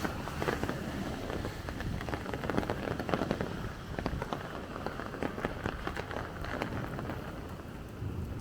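Rain falling and pattering on the street, a steady hiss dotted with many irregular sharp drop clicks.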